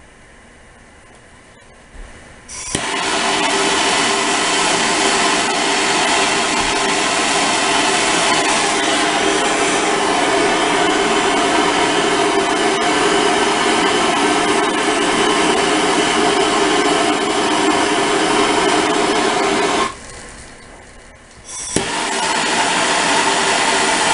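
Handheld MAPP-gas torch lit with a click, its flame running with a loud steady hiss while heating copper fittings for soldering. About four seconds before the end the flame is shut off, then clicks and lights again.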